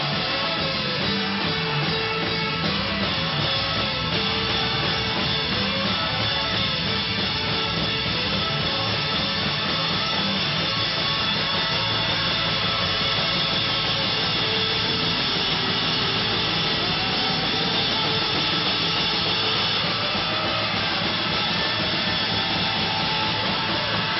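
Live rock band playing loud and steady, electric guitar and drum kit together.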